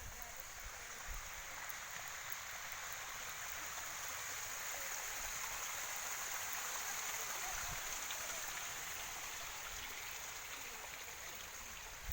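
Running water of a stream, a steady rushing hiss that grows louder toward the middle and eases slightly near the end.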